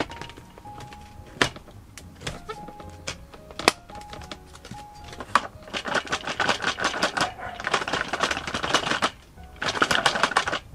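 Scattered sharp clicks, then two spells of dense, rapid clicking and rattling, over light background music with short held notes.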